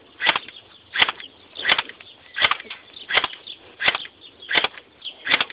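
Battery-powered Cybergun Kalashnikov AK-47 airsoft electric gun firing single shots in semi-automatic, eight sharp shots evenly spaced about one every 0.7 seconds.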